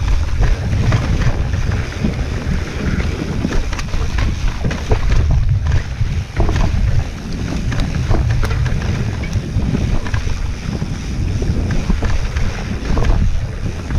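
Mountain bike riding down a rough dirt trail: a steady wind rumble on the microphone with frequent knocks and rattles from the bike going over the ground.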